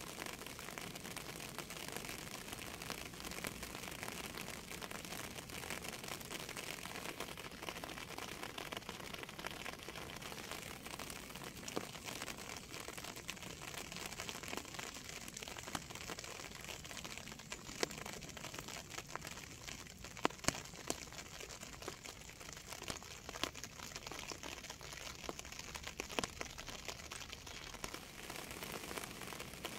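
Steady rain falling, a continuous hiss of dense patter with a few sharper, louder drop ticks about two-thirds of the way through.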